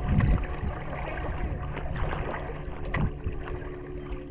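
Water splashing and lapping around a small paddled craft on a lake, with a louder low swell at the start and a few sharp drips or knocks.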